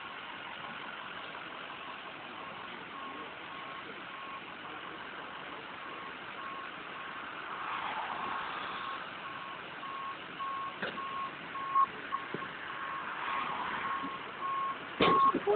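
A vehicle's backup alarm beeping at an even pace over a steady engine and road hum, with a few sharp knocks near the end.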